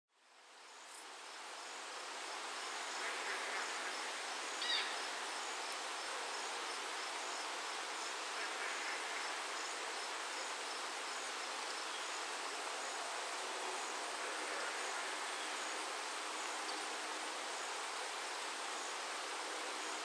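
Steady rain falling, fading in over the first two seconds and then holding even. A faint high chirp repeats at an even pace throughout, and a single short, sharper chirp sounds about five seconds in.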